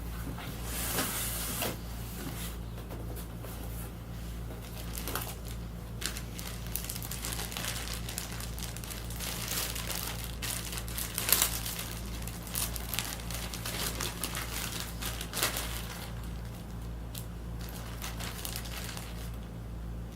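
Packing material crinkling and rustling in irregular handfuls while a tablet is unpacked, with sharper crackles about halfway through and again about three quarters of the way in. A steady low hum runs underneath.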